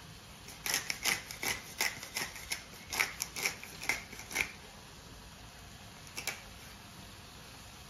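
Black pepper being put on raw beef from a pepper container: a run of quick dry clicks, about three a second, that stops about four and a half seconds in, with one more click near the end.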